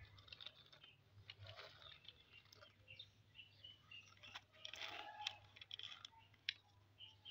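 Faint clicks and scrapes of small plastic toy cars being pushed and rolled on a concrete floor, busiest about four to five seconds in, with short high chirps in the background.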